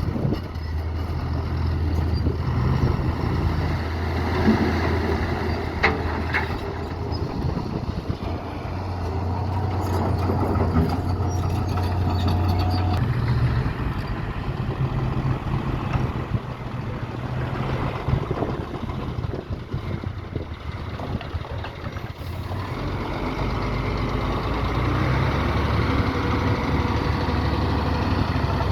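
Heavy diesel construction machinery, bulldozer and dump trucks, running with a low engine drone that rises and falls as they work, with a few sharp knocks.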